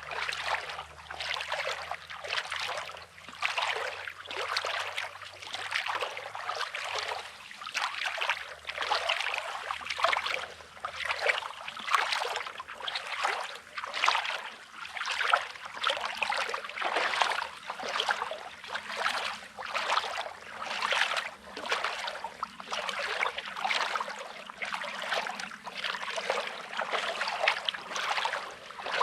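Footsteps crunching on coarse, rocky beach sand at a steady walking pace, about one step a second, over the wash of small waves on the shore.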